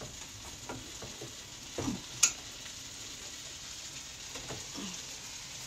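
Butter sizzling as it melts in a wok over a gas flame, a steady fine hiss, with a sharp click about two seconds in.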